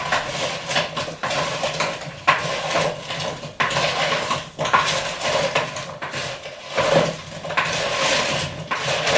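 Frozen Brussels sprouts being mixed with cream and spices in a pot, clattering and scraping against the pot with many quick clicks.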